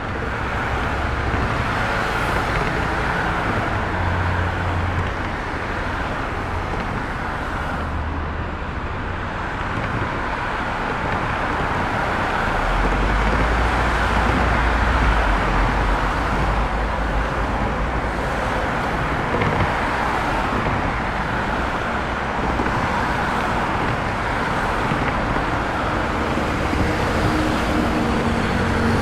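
Steady road traffic noise: a continuous wash of tyre and engine sound from passing vehicles. A deep engine rumble swells for a few seconds near the middle, as a heavy vehicle passes.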